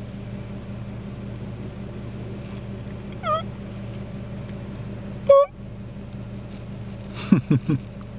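Two short squeaky calls from a hunting call blown to catch the mule deer's attention, about two seconds apart, the second louder, then three quick low falling notes near the end. A steady engine hum from the idling truck lies underneath.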